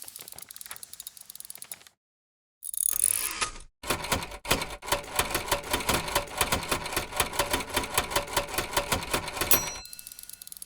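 Mechanical typewriter being typed on, its keys striking in quick, uneven runs of sharp clicks at about five strokes a second. The typing is quieter at the start and end and loudest in the long stretch in the middle.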